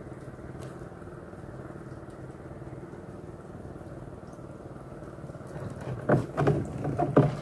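A small engine running steadily with an even drone. From about six seconds in, a run of loud, irregular knocks and splashes comes over it.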